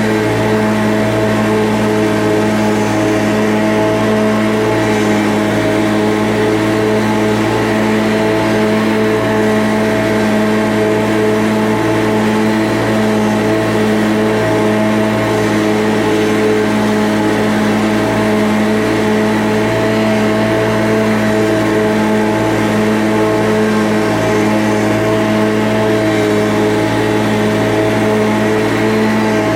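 An engine running steadily at one constant speed, a continuous drone that holds unchanged throughout.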